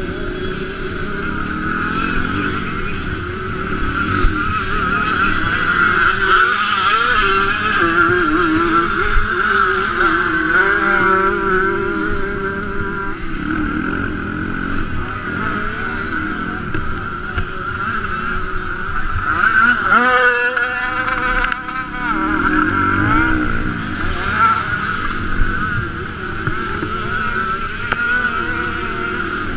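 Motocross bike engine revving hard and dropping back as the rider shifts gears and rolls on and off the throttle, pitch rising and falling over and over, with a sharp high rev about two-thirds of the way in. Heard close up from a camera mounted on the bike, with wind and track noise underneath.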